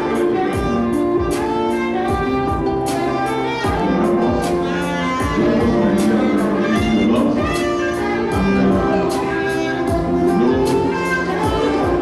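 Instrumental background music with a steady beat under held melodic notes.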